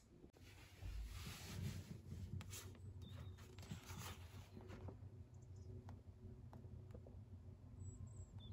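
Faint paper rustling as the pages of a paperback book are riffled and turned, in a few short rustles, over a faint low hum.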